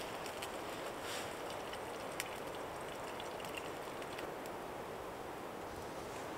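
Wind blowing steadily through the trees, an even rushing noise, with a couple of faint clicks.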